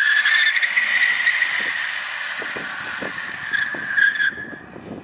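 Rear tires of a Tesla-powered 1972 Plymouth Satellite spinning in a rolling burnout, giving a loud, steady high-pitched squeal that wavers slightly. The squeal fades out about four seconds in.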